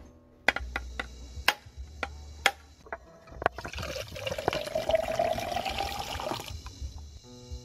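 Coconut water pouring from a freshly opened young coconut into a plastic cup: a splashing stream for about three seconds, its pitch rising as the cup fills, then stopping abruptly. Before the pour, several sharp taps.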